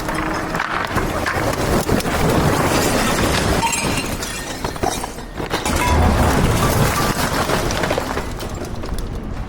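Loud, continuous crashing and clattering of mixed debris, like the load of a roll-off dumpster sliding out and breaking as it is dumped.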